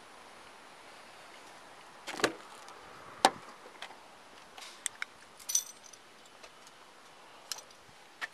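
Scattered sharp clicks and knocks with a brief metallic jingle about halfway through: keys and gear handled at a police vehicle.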